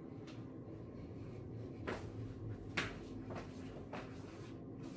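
Faint handling noises: a few soft clicks and rustles over a low room hum.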